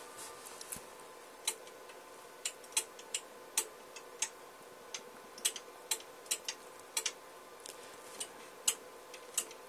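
LDG automatic antenna tuner's relays clicking irregularly, about twenty sharp clicks, as it is stepped by hand through its settings to find a better match. A faint steady tone runs underneath.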